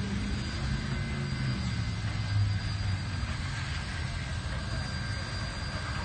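Freight train rolling slowly past, a steady low rumble of cars and wheels on the rails.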